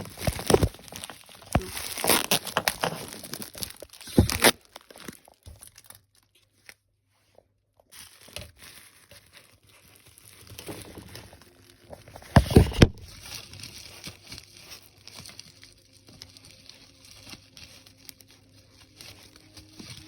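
Packaging being crinkled and torn open by hand, in irregular rustles and crackles, with a loud burst of tearing about twelve seconds in. The sound drops out completely for a couple of seconds in the middle.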